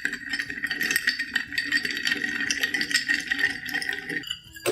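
Bar spoon stirring ice cubes in a glass mixing glass, a continuous clinking rattle as a stirred cocktail is chilled over ice. The stirring stops about four seconds in, and a louder knock of glass follows at the very end.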